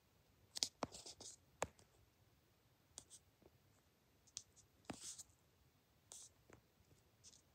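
Faint, scattered clicks and short rustles: handling and movement noise of a handheld camera. The loudest clicks come in the first two seconds.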